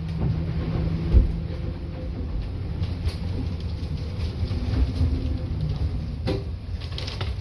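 Low rumbling of gale-force wind and steep seas on a sailing catamaran, heard from inside the closed cabin. A steady hum fades after about two seconds, and there are two sharp knocks, one about a second in and one near the end.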